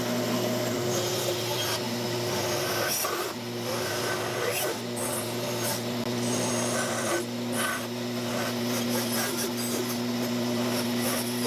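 Bandsaw running with a steady motor hum, its blade cutting curves through a small block of wood.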